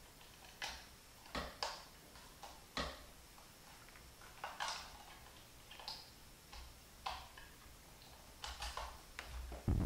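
A dozen or so irregular light clicks, taps and short rustles from handling a power cable and its plug-in power supply while plugging in a wireless charging pad.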